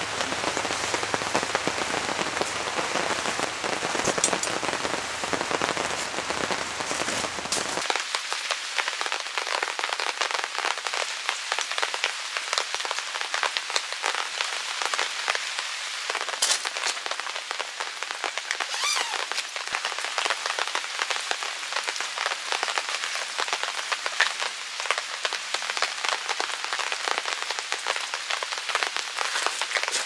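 Steady rain falling: an even hiss dense with the taps of individual drops hitting surfaces.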